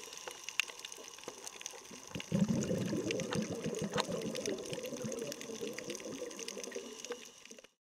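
Underwater water noise with many scattered sharp clicks and crackles. About two seconds in, a louder low rush of moving water comes in and runs on until the sound cuts off just before the end.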